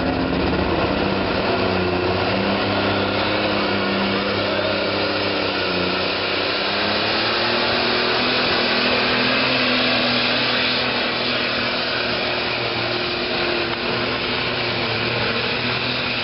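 Super stock pulling tractor's turbocharged diesel engine running flat out during a pull, a loud, continuous high-pitched scream. Its pitch wavers for the first several seconds, then holds steady.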